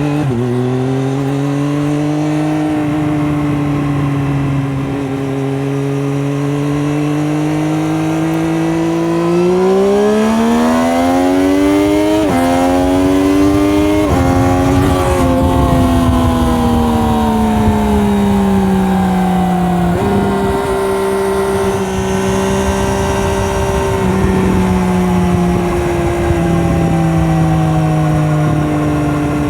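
Triumph Daytona 765 Moto2's three-cylinder engine through its stock Arrow exhaust, heard from the rider's position. It picks up speed at the start and holds a steady cruise, then revs up through two quick upshifts about halfway through. After that it eases off gradually and settles back to a steady cruise.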